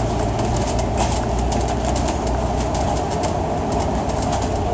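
Citybus bus heard from on board while driving: a steady engine and road drone with frequent rattling clicks from the bus body.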